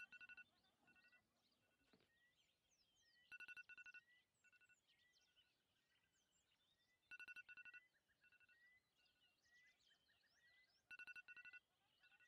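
A telephone ringing faintly: a trilling two-tone ring that repeats about every four seconds.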